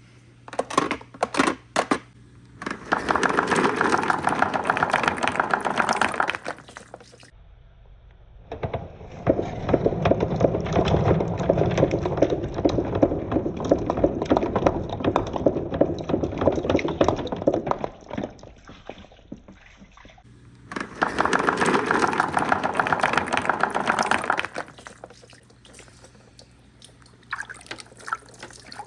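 Marbles rolling and clattering down a wooden marble run, in three long runs of dense rattling with scattered clicks between them.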